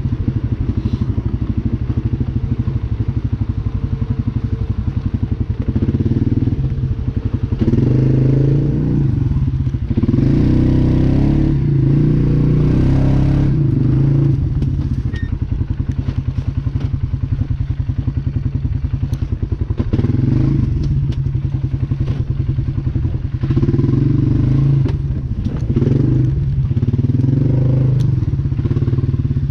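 Polaris Sportsman 570 ATV's single-cylinder engine running under way, its pitch rising and falling several times as the throttle opens and closes. A few knocks and rattles from the machine going over rough trail.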